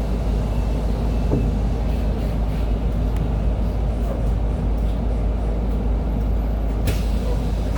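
Huade RAC-700-3000 battery-electric city bus (TECO motor, direct drive, no gearbox) heard from on board while running: a steady deep rumble of road and chassis noise. There is a brief click about seven seconds in.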